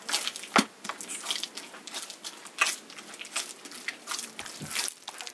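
Hands kneading soft, sticky bread dough in a plastic basin: irregular squelching and pressing sounds, with one sharper hit about half a second in.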